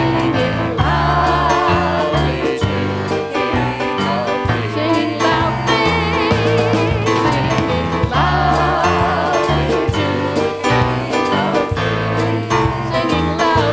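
Worship song played by a band, with a steady bass line under a sung voice held with vibrato. The voice comes in about a second in and again a little past the middle.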